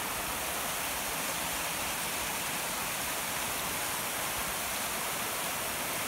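Steady rush of a mountain creek cascading over a sloping bare rock face at the head of a slide waterfall.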